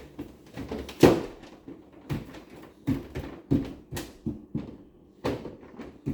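Irregular knocks and thumps, about a dozen over six seconds with the loudest about a second in, as a refrigerator's door and the things in it are handled.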